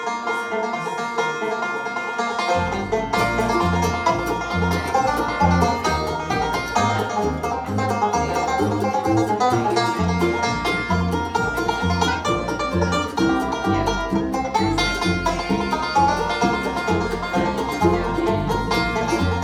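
Bluegrass-style music led by a banjo picking quickly, with low bass notes joining in a steady rhythm about two and a half seconds in.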